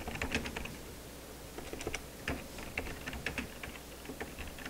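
Typing on a computer keyboard: irregular runs of keystroke clicks with brief pauses.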